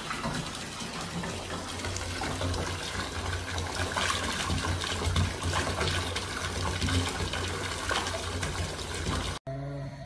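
Bath mixer tap running full into a partly filled bathtub, a steady rush and splash of water. It cuts off suddenly near the end.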